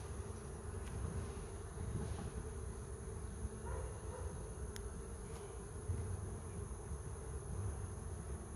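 Honeybees buzzing steadily around an open beehive, a continuous hum. A single sharp click sounds near the middle.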